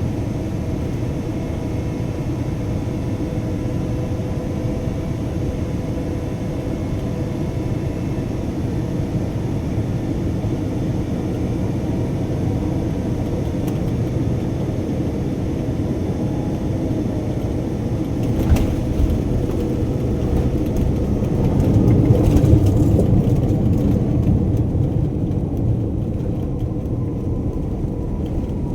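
Airliner cabin noise during landing: a steady engine and airflow rumble with faint whining tones, a thump about two-thirds of the way through, then the rumble swells for a few seconds and eases off.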